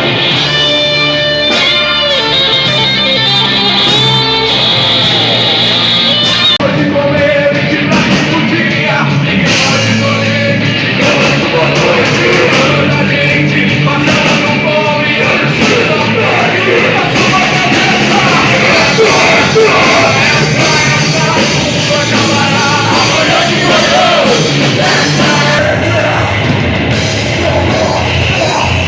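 Live Christian rock band playing loud and heavy, with distorted electric guitars, drums and a singer.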